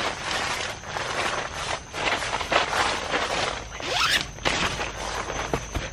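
Tent door zipper being drawn open in several rasping pulls, with the tent's nylon fabric rustling.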